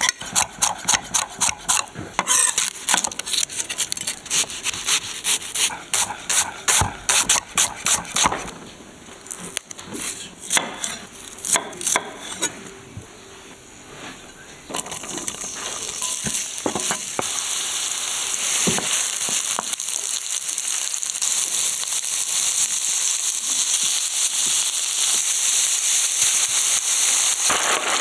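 A kitchen knife chopping vegetables on a wooden cutting board in quick repeated strokes for about the first eight seconds, then a few scattered taps. From about fifteen seconds in, vegetables frying in oil in a pan, the sizzling growing steadily louder.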